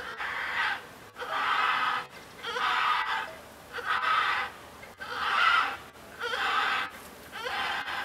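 Eurasian griffon vultures calling during copulation: a regular series of harsh calls, about one a second, each lasting about half a second.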